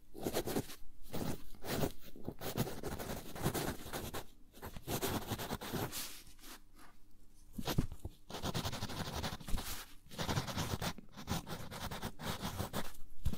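Wooden pencil writing on lined paper: a run of scratchy strokes of varying length, with short pauses between words.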